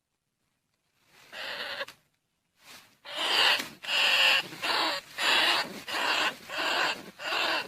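Field rat and bandicoot rat lure calls: a single call about a second in, then from about three seconds a rapid run of repeated calls, roughly one and a half a second.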